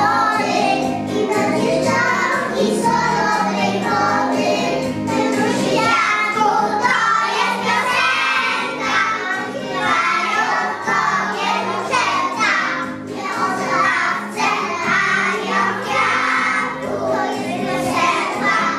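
A group of young preschool children singing a song together in unison, with instrumental musical accompaniment.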